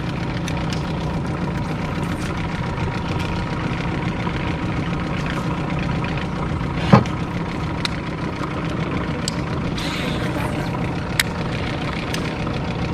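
Engine idling steadily. A single sharp knock about seven seconds in is the loudest sound, and a smaller click follows about four seconds later.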